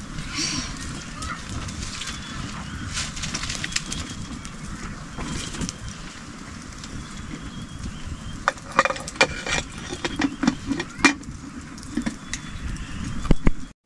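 Open wood fire burning with a low rumble and scattered crackles under a cooking pot. About eight and a half to eleven seconds in, a run of sharp metallic clinks and knocks as a pressure-cooker lid is handled and fitted onto the pot, with a few more near the end.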